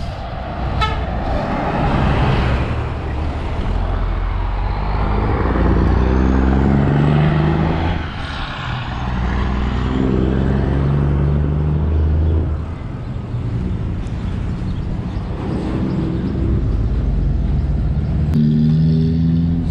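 Road traffic passing close by on a highway: buses, trucks and cars go past one after another, their engines swelling and fading several times. There is a short horn toot about a second in.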